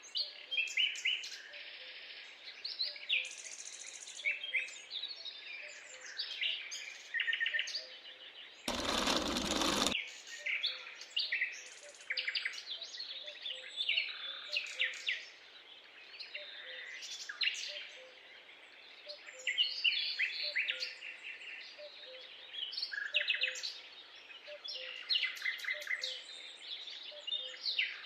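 Many small songbirds chirping and trilling in a busy overlapping chorus. A short burst of hiss lasting about a second cuts across it about nine seconds in.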